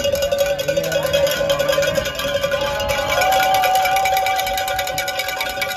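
Rapid, steady metallic ringing from a spectator's handheld noisemaker, struck many times a second. A higher held tone joins about halfway through and stops near the end.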